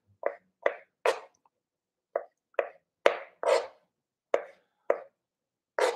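Kitchen knife chopping small tomatoes on a plastic cutting board: about ten separate cuts at an uneven pace of roughly two a second, with a short pause early on.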